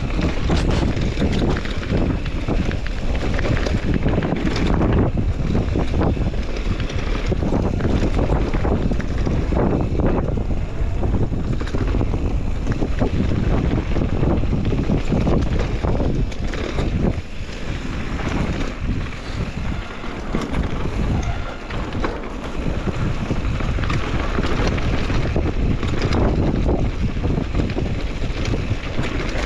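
Wind rushing over the microphone of a camera riding on a mountain bike going downhill, with tyres on a dirt trail and frequent rattling knocks as the bike runs over bumps.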